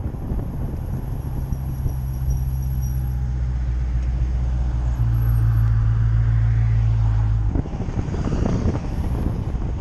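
2017 Dodge Challenger SRT driving slowly, its engine humming steadily; the hum changes about five seconds in and drops away about half a second after seven, leaving road and tyre noise. A faint, thin, high squeal from the brakes runs through the first three seconds or so.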